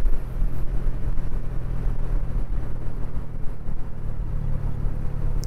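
TVS Ronin's single-cylinder motorcycle engine running at a steady cruise while riding, a constant low drone over heavy low rumble.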